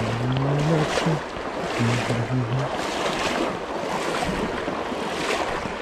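Steady rush of a fast river's flowing water close to the microphone. A man's low voice sounds briefly twice in the first three seconds.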